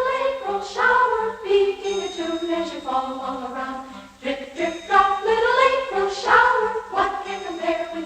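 Music with voices singing over a steady pulsing low note.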